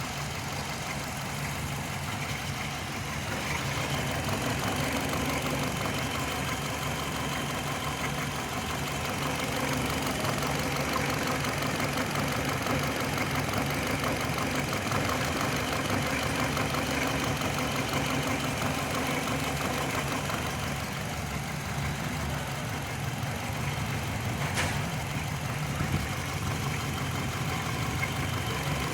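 A 2005 Hyundai Matrix's four-cylinder engine idling steadily. The car has a cylinder-2 misfire (code P0302) and unstable running. One short click sounds near the end.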